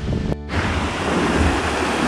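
Music cuts off about a third of a second in, then the steady rush of a mountain waterfall's water cascading over rocks.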